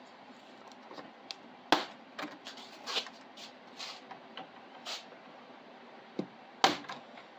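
Scattered sharp clicks and light knocks, irregularly spaced, the loudest about a second and a half in and near the end: cable ties being snipped with cutters and packaging and printer parts being handled.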